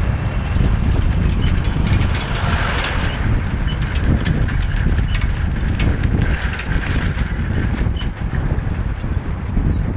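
A vehicle moving along a rough mountain road: a steady, loud low rumble of engine and road noise, with wind buffeting the microphone and scattered small rattles.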